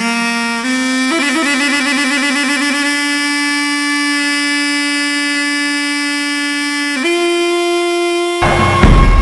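Music played on a single reedy wind instrument: a few short notes, a quick wavering trill, then one long held note, with drums coming in loudly near the end.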